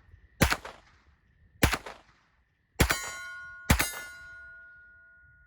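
Four shots from a Sig MPX Gen 2 9mm pistol, spaced about a second apart. After the third and fourth shots a metallic ringing lingers and fades slowly, like a struck steel target.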